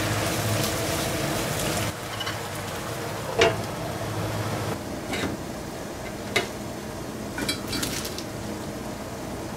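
Chicken pieces sizzling in a frying pan while a spatula stirs them. After about two seconds the sizzle drops away, and a few separate sharp clinks and knocks of pan lid and kitchenware follow, the first the loudest.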